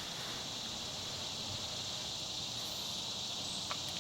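Steady, high-pitched chorus of summer insects droning without a break, with one faint click near the end.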